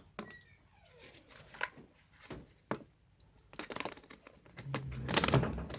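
Small plastic toy shopping-trolley parts being handled and pushed together: scattered light clicks and taps, getting busier and louder with rustling toward the end.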